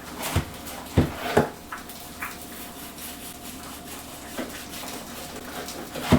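A few sharp knocks and clatters of kitchen utensils and dishes: three within the first second and a half, then one near the end, with lighter ticks between over a faint steady hum.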